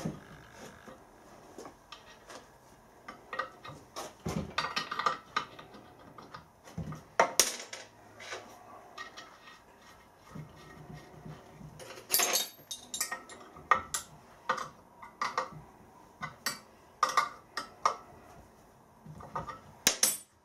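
Irregular metallic clinks and clatter of steel nuts being worked off the studs of a rusty iron steam engine main bearing block, by hand and with a spanner, and set down on the metal.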